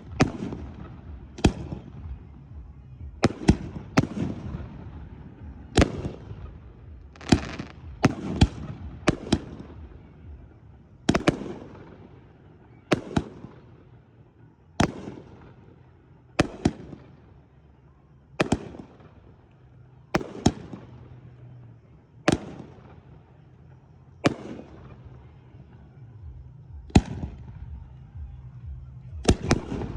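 Fireworks bursting overhead in a steady string of sharp bangs, one every second or two, each trailing off in a rumbling echo.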